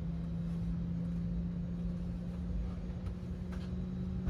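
Airbus A321neo cabin noise in flight: a steady rumble of engines and airflow with a steady low hum. A faint click comes near the end.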